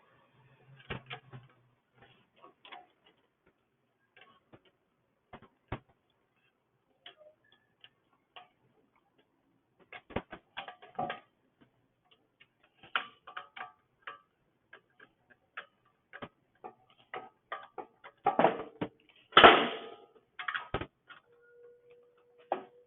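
Irregular light clicks and taps of hand tools and small metal engine parts being handled and fitted, with a louder clatter about 19 to 20 seconds in.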